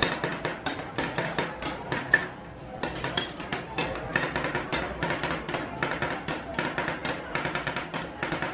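Two metal spatulas chopping and scraping ice cream against a frozen steel cold plate for rolled ice cream: a quick run of metallic taps, about four or five a second, with a short break about two seconds in.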